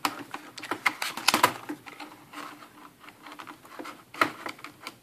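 Irregular small clicks and taps of plastic and metal as a laptop keyboard's ribbon cable is worked into its connector by fingers and a screwdriver tip. The loudest clusters come about a second in and again about four seconds in.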